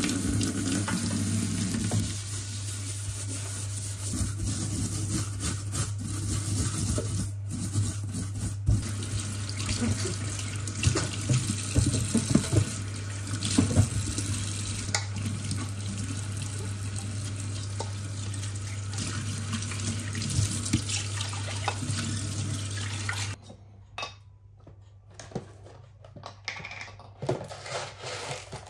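Kitchen tap running into a stainless steel sink, water splashing over hands and a soapy sponge as it is scrubbed and rinsed, over a steady low hum. Near the end the running water cuts off abruptly, leaving a few light clicks and knocks of small items being handled.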